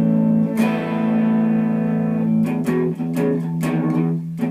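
Guitar playing an intro riff: a chord strummed about half a second in and left ringing, then single notes picked in quick succession from about two and a half seconds in.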